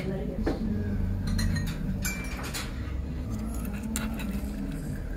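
Metal cutlery clinking and scraping against a ceramic plate as a knife and fork cut into a cooked breakfast: a handful of short sharp clinks over a low steady background murmur.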